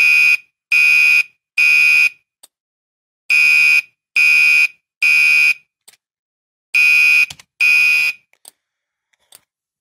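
Gentex Commander 3 fire-alarm horn sounding a temporal-three evacuation pattern, loud high-pitched blasts of about half a second in sets of three with a longer pause between sets; the last set has only two blasts. The horn is pulsed by a relay that an Arduino switches to simulate the Gentex sync protocol, and faint relay clicks fall in the gaps.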